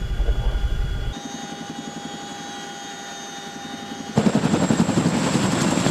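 CH-47F Chinook tandem-rotor helicopter heard from inside in flight. A heavy low rumble gives way about a second in to a quieter stretch of steady turbine whine, and about four seconds in it jumps to a much louder, rapidly pulsing rotor noise.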